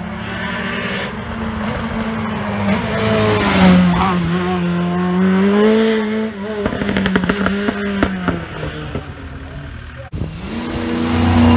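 Rally car engine at full throttle as the car passes close, its pitch climbing and then falling away, with a run of sharp crackles as it goes by. About ten seconds in the sound cuts abruptly to another rally car's engine building as it approaches.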